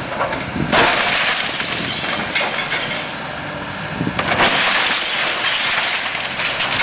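Timber walls and roof of a wooden house cracking, splintering and crashing down as a Komatsu tracked excavator tears into them, over the excavator's engine running. There are two long crashes, one about a second in and another around four seconds in.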